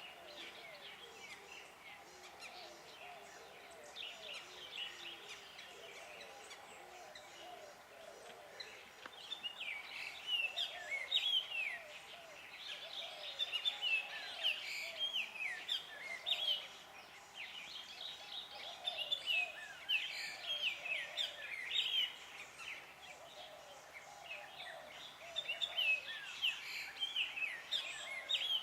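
Chorus of many wetland-woodland birds calling and singing together, with rapid high chirps over lower calls. The chorus swells and thins in waves.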